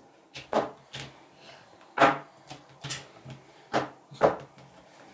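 A run of about nine sharp knocks and taps from small objects being handled and set down. The loudest comes about two seconds in, with another strong one near the end.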